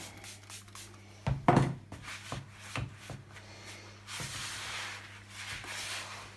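Hands rubbing and working dry, powdery bath bomb mix in a bowl, a gritty rustling, with a knock and a few light clicks of handling about a second in.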